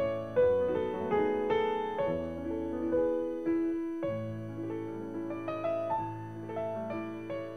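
Background music: a gentle piano melody of single struck notes, each fading after it is played.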